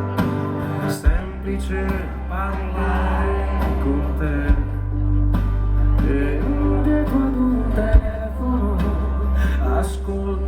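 Live band playing the instrumental intro of a pop ballad: guitar over sustained bass notes that come in about a second in.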